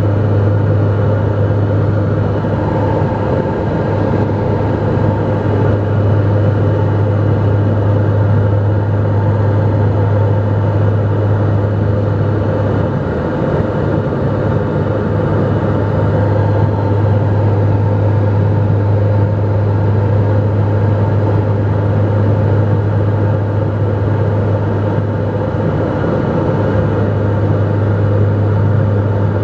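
Cabin noise of a Dornier 228 in flight: its twin turboprop engines and propellers give a loud, steady low drone with a strong hum and several steady higher tones over a hiss of rushing air.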